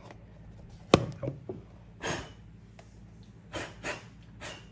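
A paper watch box being handled: one sharp knock about a second in, then a few short rustling scuffs.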